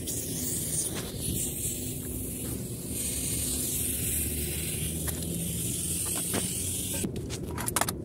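Steady hiss of R-22 refrigerant gas at the gauge manifold and charging hoses, over the low hum of the air-conditioner's outdoor unit. The hiss cuts off suddenly about seven seconds in, followed by a few sharp clicks.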